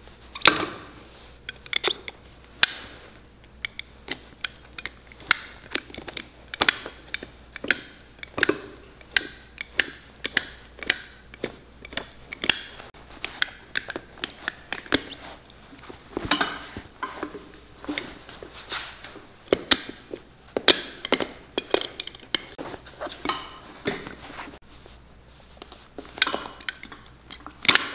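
A utility knife and a pick cutting and prying the heat-fused sole off a Dr. Martens boot's welt. The sound is an irregular run of sharp clicks, snaps and scrapes as the sole tears away.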